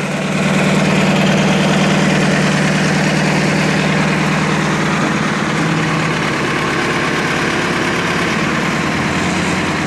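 Diesel engine of a Caterpillar 428C backhoe loader idling steadily, dropping slightly in level about halfway through.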